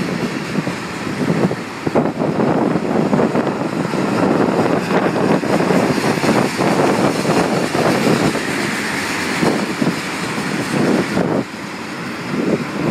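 Freight train of tank cars rolling past at close range: steel wheels rumbling on the rails, with irregular clicks and clatter as the cars go by.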